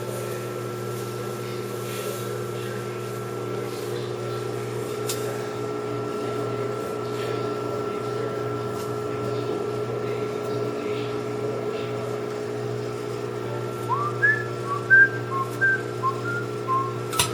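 Microwave oven running with a steady hum while it heats a piece of cauliflower. Near the end a person whistles a short run of quick, high notes over the hum.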